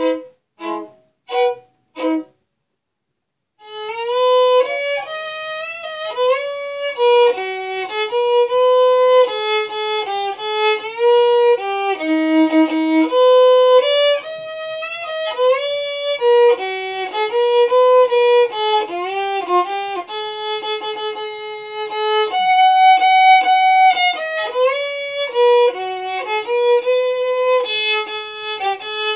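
Solo violin played as a fiddle in an Irish-style tune. It begins with four short bowed notes and a brief pause, then launches about three and a half seconds in into a continuous, quick-moving melody of many short notes with slides between them.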